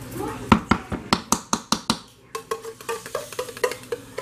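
A kitchen utensil scraping and knocking against the inside of a metal can of cherry pie filling to get the filling out. First comes a run of quick sharp clicks, then after a short pause a series of lighter, more even taps.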